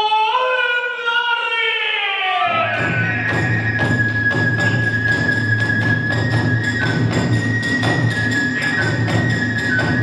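A kagura performer's long drawn-out chanted line, its pitch rising and then sliding down, ends about two and a half seconds in. Then the fast kagura ensemble starts up: the big barrel drum beaten continuously, a bamboo transverse flute holding high notes, and small hand cymbals clashing in a quick rhythm.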